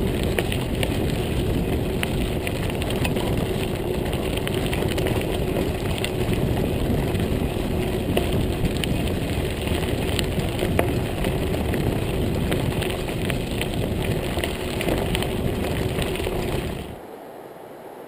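Montague Paratrooper Pro folding mountain bike rolling fast over a gravel trail: heavy wind rush on the microphone with tyre noise and frequent small rattling clicks. Near the end it cuts off to a much quieter, steady hiss.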